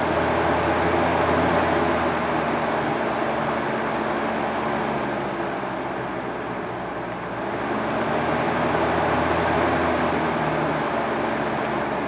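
Lasko 3542 20-inch Cyclone fan running: a steady rush of moving air over a low motor hum. It eases off about five seconds in and swells again about two seconds later.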